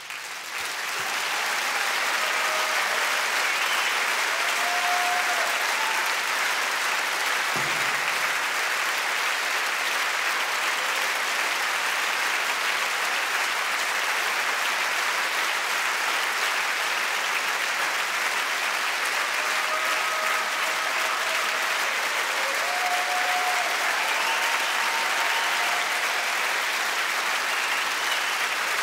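Concert-hall audience applauding. The clapping swells in within the first second and then holds steady and dense.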